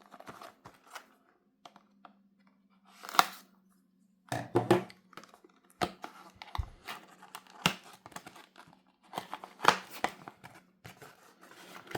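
Cable packaging being torn open and crinkled, in irregular bursts with small clicks and rustles between.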